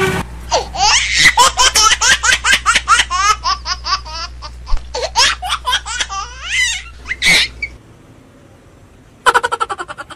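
High, rapid laughter, one quick pulse after another for about seven seconds, laid over the footage as a comic sound effect. Near the end comes a short, loud, buzzy burst.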